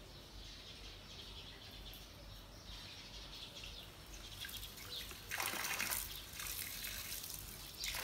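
Water running from a tap, splashing as feet are washed under it; it comes on strongly about five seconds in, in a couple of gushes. Birds chirp faintly before it.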